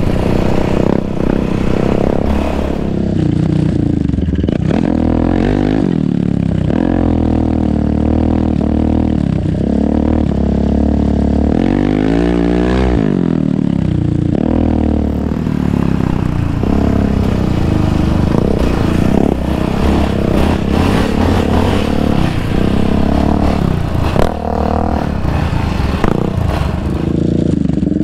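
Yamaha Raptor 700 sport ATV's single-cylinder engine running hard on a dirt trail, its pitch rising and falling again and again as the throttle is worked and it shifts through the gears.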